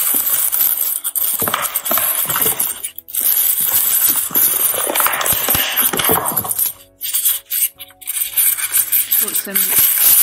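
Close, loud rustling and handling of craft materials being rummaged through on a table, with a few light clinks, a short break about three seconds in and a quieter spell about seven seconds in.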